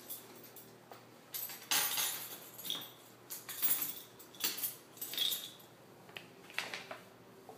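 Vertical window-blind slats clacking and rattling against each other as they are pushed aside, in an uneven run of light clattery knocks.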